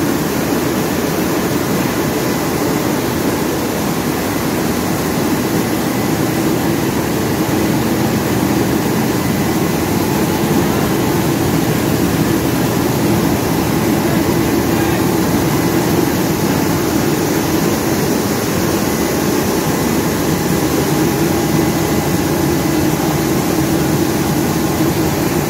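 Semi-automatic rice milling unit running: its milling machines working together in a loud, steady mechanical drone.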